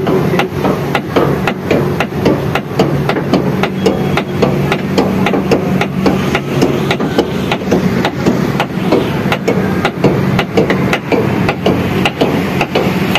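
Amusement-ride machinery running: a steady motor hum with a rapid, even clacking, about three clacks a second.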